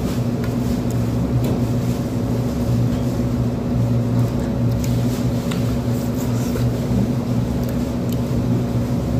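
A steady low machine hum, with scattered soft clicks and smacks of someone eating with his hands.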